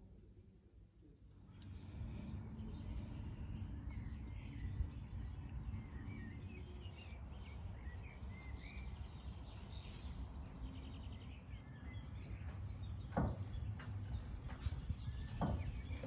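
Wind rumbling on the microphone outdoors, starting about a second and a half in, with small birds chirping over it.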